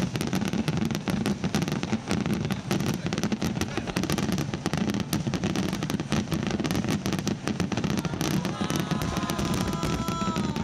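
Fireworks barrage: a dense, continuous run of cracks and bangs from many shells bursting at once.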